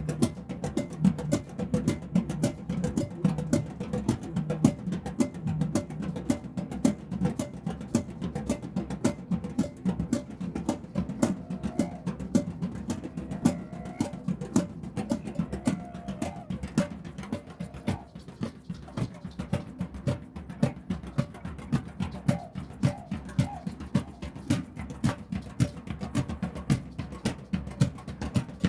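A drum circle: many drums struck together in a dense, steady rhythm, with deep drum tones carrying the beat.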